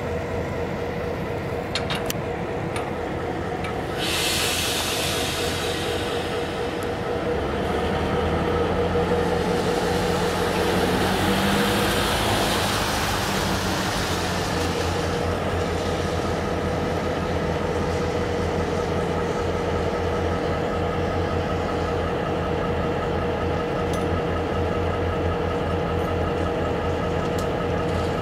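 Norfolk Southern diesel locomotive engine running steadily with a low rumble that grows stronger about seven seconds in. There is a short burst of hissing about four seconds in, and a broad swell of noise that rises and fades between about nine and fifteen seconds.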